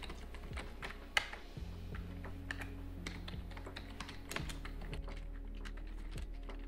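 Typing on a computer keyboard: a run of irregular key clicks. Soft background music with low sustained notes comes in underneath about a second and a half in.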